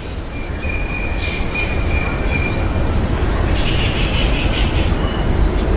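Steady low rumbling noise with a high, thin squealing tone for the first two seconds or so, then a fainter hiss higher up, like a large vehicle passing.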